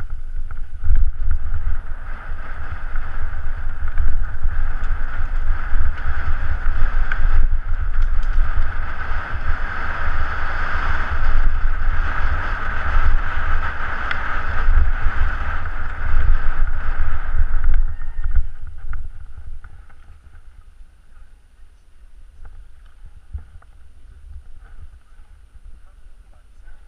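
Wind buffeting the camera microphone and mountain bike tyres rolling and rattling over a rocky dirt trail at speed, with a steady high buzz over the rumble. About nineteen seconds in it all falls away sharply as the bike slows and stops.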